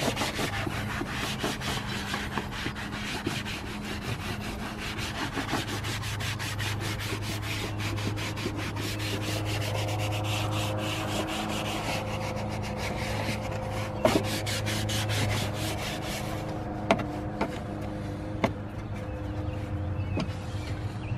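A cloth rubbed briskly back and forth over a plastic engine cover, a dense run of quick wiping strokes that stops about three-quarters of the way through. A steady low hum runs underneath, and a few sharp clicks sound near the end.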